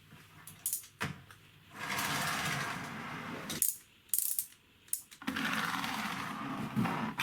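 The plastic gear train of a 3D-printed wind-up car whirring as its spring drives it, in two spells of a couple of seconds each, with a few sharp clicks between them.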